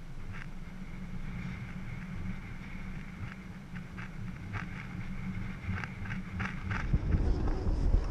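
Wind buffeting an action-camera microphone, with a low rumble and scattered light ticks. About seven seconds in it turns louder and heavier as the blokart gets moving.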